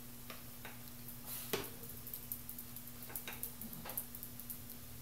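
Scattered light clicks and taps of a metal icing spatula against the cake stand and bowl while whipped cream is spread over a sponge cake, with one louder knock about one and a half seconds in. A steady low hum runs underneath.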